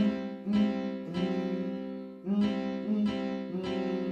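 Background music: a keyboard playing a simple tune, its notes struck about every half second and dying away.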